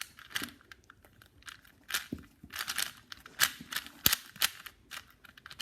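A plastic 4x4 Rubik's cube being turned by hand: quick, irregular clicks and clacks as its layers turn.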